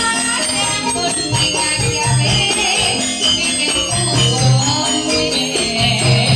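Live Javanese campursari music played for tayub dancing: an ensemble with deep drum strokes, jingling percussion and a high wavering melody over it, playing continuously.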